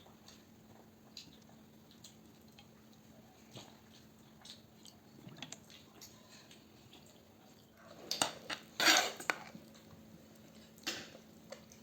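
Kitchen dishes and utensils clinking and knocking, with a louder clatter about eight to nine and a half seconds in and another knock near the end.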